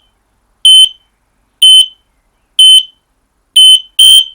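Radio-interlinked battery smoke alarm sounding loudly in test mode after its test button is held, with short high-pitched beeps about once a second. Near the end, a second beep train joins out of step with the first: the other interlinked alarms, set off by radio, are sounding too.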